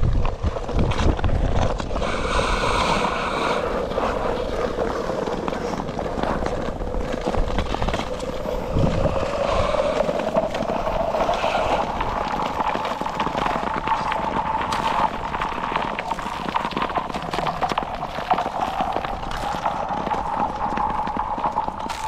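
Thin natural ice singing under skaters: a sustained, ringing tone that slowly rises in pitch over the first half and then holds steady. Sharp clicks and scrapes from the skate strokes run over it.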